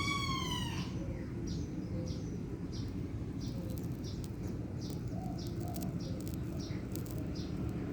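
A small bird chirping in short, evenly spaced high calls about twice a second, over a steady low background rumble. A rooster's crow trails off in a falling call during the first second.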